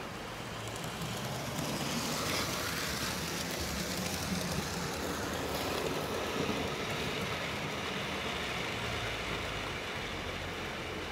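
OO-gauge model train running along the track: a steady motor hum with wheel and rail noise, louder after the first second or two.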